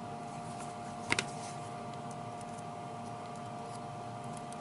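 A light double click of metal multimeter test-lead tips touching a scope probe's ground clip about a second in, over a faint steady electrical whine. No continuity beep sounds: the ground wire reads open.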